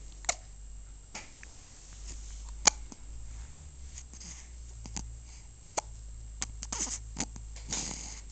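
A series of about nine short, sharp hiccups at irregular intervals, the loudest about two and a half seconds in and a slightly longer one near the end.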